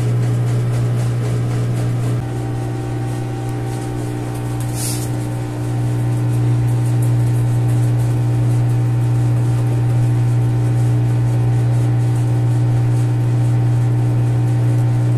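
Daewoo top-loading washing machine in its spin cycle, a steady motor hum that dips slightly about two seconds in and picks up again about six seconds in. A brief hiss about five seconds in.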